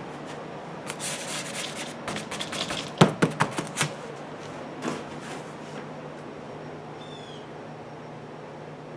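Rustling, then a sharp knock followed by a quick run of four or five more knocks, and one more knock a second later, over a faint steady low hum.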